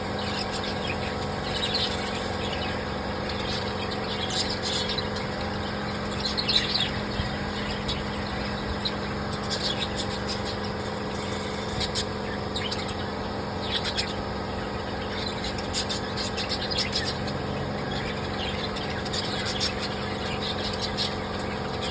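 Small birds chirping in short, high bursts every few seconds, over a steady low hum.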